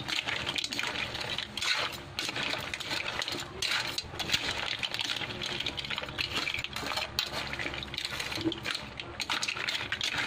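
Mussel, crab and shrimp shells clattering and scraping against a metal wok and each other as a ladle stirs and tosses them, with the cooking juices hissing underneath.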